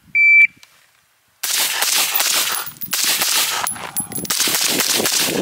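An electronic shot-timer beep starts the string. About a second later a rapid string of gunshots begins and runs on, with steel targets clanging and ringing under the hits.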